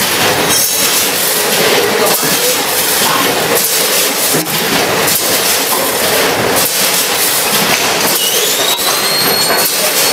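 Vertical form-fill-seal oat packaging machine running: a loud steady mechanical clatter and hiss with repeated knocks. A high whine rises in pitch about eight seconds in.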